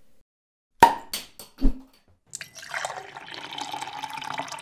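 Sound effect of liquid being poured into a glass: a few sharp clicks a little under a second in, then a steady pour of liquid for about three seconds.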